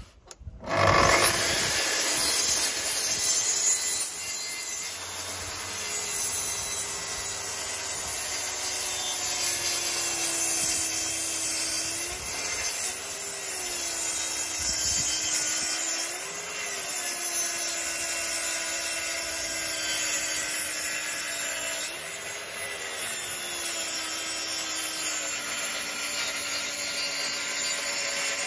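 Festool plunge-cut track saw starting up about a second in, then cutting slowly along a thick, weathered old timber on its guide rail. The motor runs steadily under load, its pitch wavering briefly a few times.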